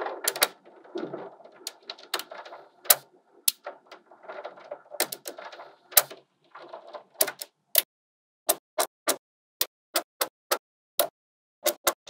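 Small magnetic balls clicking sharply as they snap onto one another, with scraping and rattling of balls against the structure in the first half. Later come spaced single clicks, roughly two a second, as balls are set in place one at a time.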